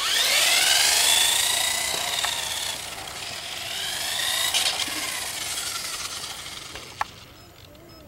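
Electric motor of a remote-control car whining at speed over tyre hiss, rising and falling in pitch twice before fading away. A sharp click comes near the end.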